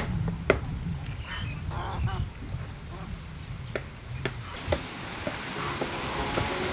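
A kitchen knife tapping down through a squid tube onto a wooden chopping board as it is scored: a handful of sharp, irregular knocks. Fowl call in the background about a second and a half in.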